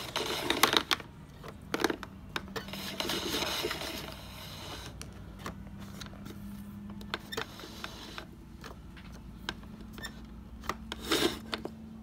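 Cirrus canister vacuum's cord-rewind reel pulling its power cord back in while the rewind button is held down: the cord scrapes and the reel clicks and rattles on and off, with a louder clatter near the end.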